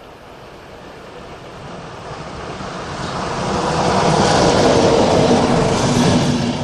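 Locomotive-hauled passenger train approaching and passing at speed: a rush of wheels on rails that grows steadily louder and is loudest from about four seconds in as the coaches go by.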